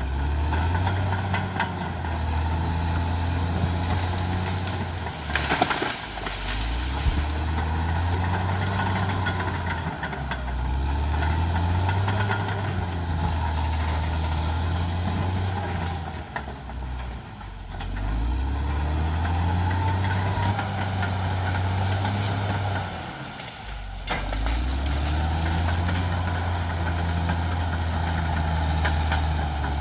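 Caterpillar D6R XL bulldozer's diesel engine running hard, its note sagging and climbing back several times about every six seconds. A single sharp crack sounds about five and a half seconds in.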